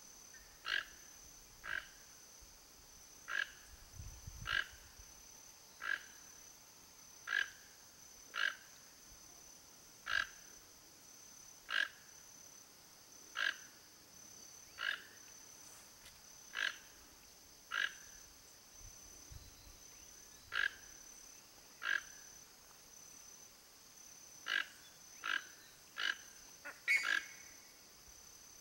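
Toco toucan giving short, harsh croaking calls, about one every second or so, coming quicker near the end, over a steady high-pitched insect drone.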